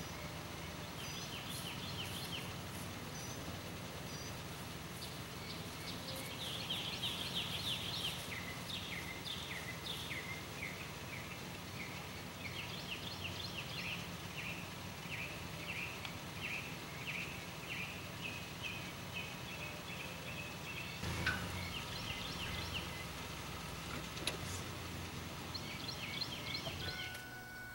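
Songbirds singing: long runs of quick chirping notes over a steady low background hum, with a single sharp knock about two-thirds of the way through.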